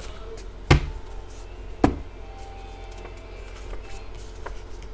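Two sharp knocks on a tabletop about a second apart, then a few faint taps, as a tarot deck and cards are handled on the table, over a low steady hum.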